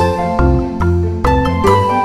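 Background music: a melody of short pitched notes over a bass line, in a steady rhythm.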